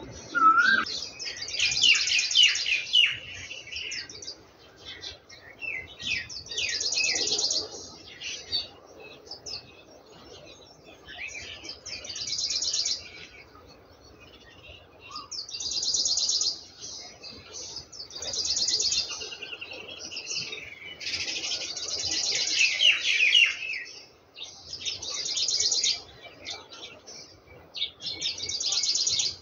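Small birds chirping and twittering in bursts of rapid, high trills every few seconds, mixed with a few lower, falling notes.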